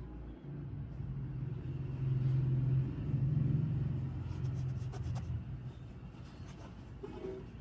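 Low rumble of a passing motor vehicle, swelling to its loudest about two to three seconds in and fading away by about six seconds.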